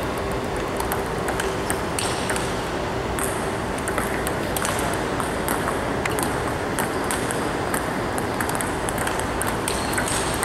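Table tennis balls knocking: many short, sharp clicks in irregular succession over a steady background hiss.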